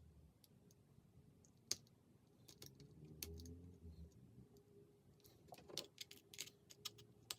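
Faint, scattered clicks and taps of small plastic and metal iPod nano parts being handled and fitted into the housing: one sharp click a little under two seconds in, then a quick run of clicks near the end.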